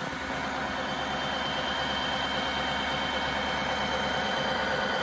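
Tineco iFloor 3 floor washer in the first stage of its self-cleaning cycle: the brush-roll motor runs steadily while the roller is soaked with cleaning water, before the suction motor starts. A steady hum with a thin high whine over it.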